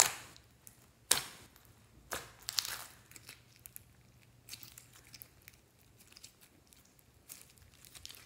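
Clear slime loaded with floam foam beads being poked and then squeezed by hand: four sharp pops in the first three seconds, then a run of softer crackling and squishing as it is kneaded.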